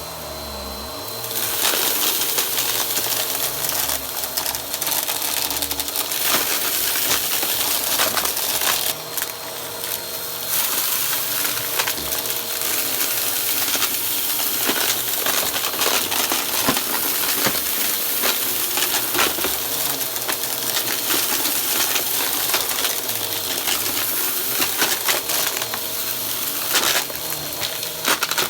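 Vacuum cleaner running steadily while sucking up crunchy debris, with hard bits continually rattling and clicking through the nozzle and hose. The rattling gets louder about a second and a half in.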